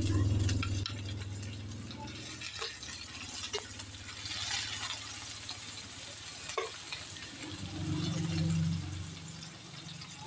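Sliced onions and garlic sizzling in hot oil in a nonstick frying pan, with scattered clicks and scrapes of a metal spoon stirring them. A low steady hum is loudest at the start, fades, and comes back about eight seconds in.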